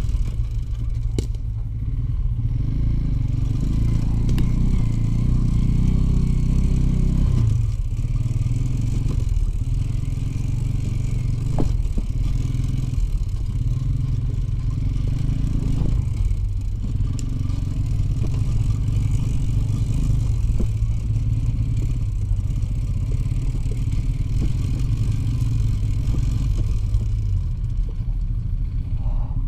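A Soviet two-stroke motorcycle engine running while riding off-road. The engine note rises and falls with the throttle, with some clattering over the rough track.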